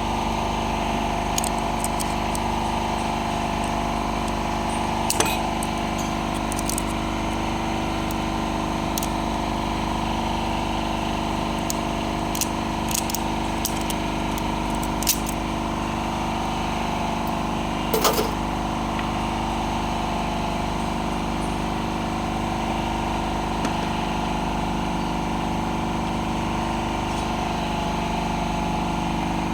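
A steady mechanical hum, like a motor or engine running, with a few short sharp clicks of tools or metal parts over it.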